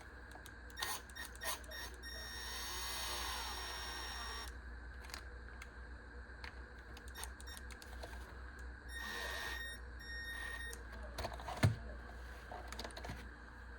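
Hand-work on an RC truck's wheel and tire: scattered small plastic clicks and knocks, a stretch of rubbing and squeaking, two short high tones, and one sharper knock near the end as the tire is worked off.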